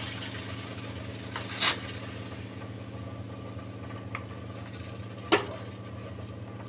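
Steady low hum with two brief knocks, about a second and a half in and again near the end, as a hand handles a pressure cooker on a gas stove.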